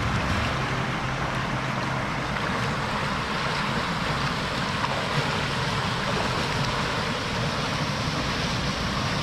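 Steady rush of water in a swollen stream pouring over a small weir.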